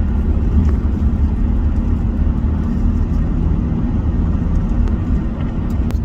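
Strong gusting wind of a gustnado buffeting the microphone: a loud, steady low rumble.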